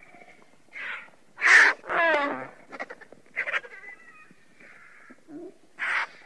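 Vultures giving a series of short, harsh, hoarse calls, one of them a wavering cry that falls in pitch about two seconds in. The loudest call comes about a second and a half in.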